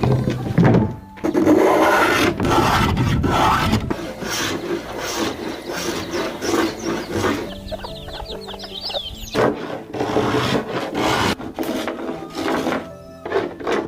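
Repeated rasping, scraping strokes in bursts, over background music with held tones.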